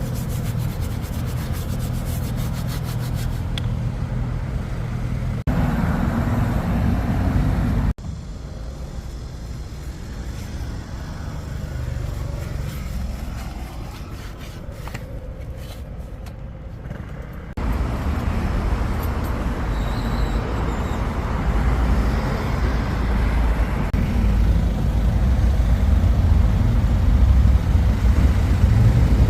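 Steady machine noise from rust-removal equipment running, in edited segments that change abruptly about five, eight and seventeen seconds in, with a quieter stretch in the middle.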